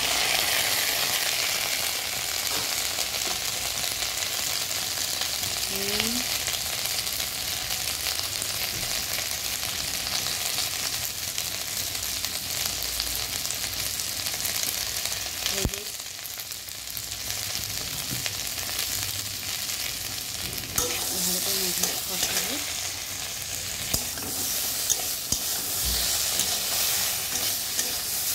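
Potato, pointed gourd and soya chunks frying in oil in a metal kadai, sizzling steadily as freshly added ginger and green chilli paste and spices are fried down with the vegetables. A metal spatula stirs and scrapes against the pan, its clicks coming more often in the last third.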